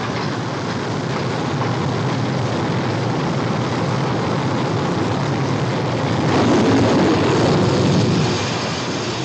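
Jet engine noise on an aircraft carrier's flight deck, steady and swelling louder about six seconds in before easing off near the end.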